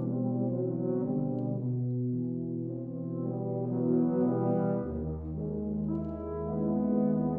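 Tuba and euphonium quartet of two euphoniums and two tubas playing sustained brass chords. A deep, low tuba note enters beneath them about five seconds in.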